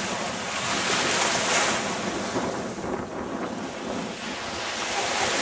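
Small waves washing onto a sandy shore, swelling and ebbing, with wind buffeting the microphone.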